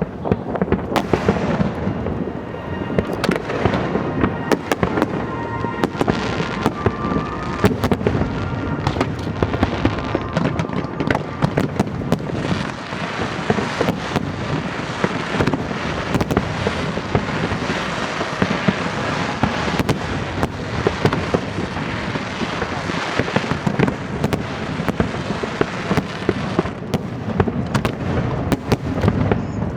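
Aerial fireworks display going off in a rapid, continuous barrage of bangs and crackling with no break.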